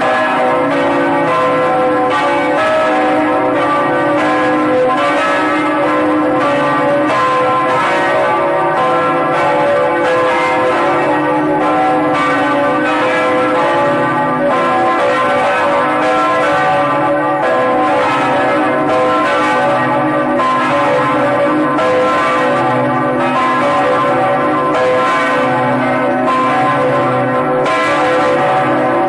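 Several large bells ringing together in a continuous peal, struck again and again, their overlapping tones sustaining into each other at a steady loudness.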